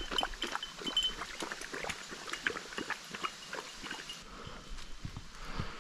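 Gravel crunching under footsteps, with a small bell on a bird dog's collar tinkling in short runs and the dog splashing through a muddy puddle.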